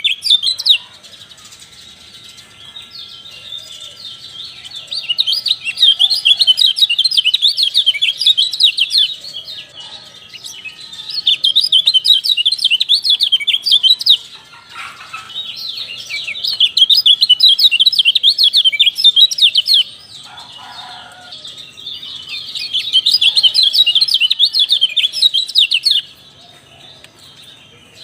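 Kecial songbird singing: a rapid, high twittering song given in bouts of a few seconds each, with short pauses between them.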